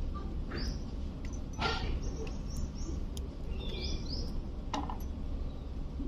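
Alexandrine parakeet giving a handful of short chirps and squawks, including a quick pair of rising chirps about four seconds in.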